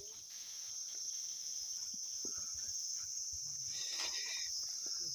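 Insects in the forest droning in a steady, high-pitched chorus, with faint scattered footsteps on dry leaf litter underneath.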